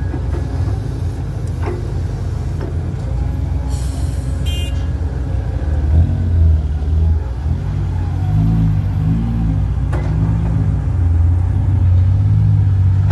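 Diesel engine of an Isuzu Forward dump truck running, then revving up and down from about halfway as the loaded truck pulls away. A short hiss about four seconds in.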